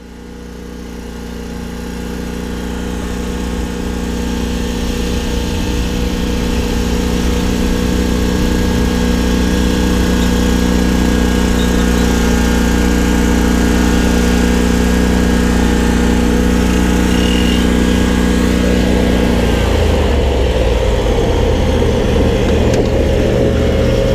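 Engine of an Exmark Vantage stand-on mower running steadily, fading in over the first few seconds. About 19 seconds in it shifts to a lower, rougher note.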